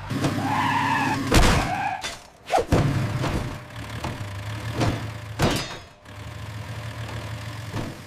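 Cartoon crash sound effects of a brick wall coming down: a screech-like skid in the first two seconds, then a series of sharp crashes and thuds spread over the next few seconds.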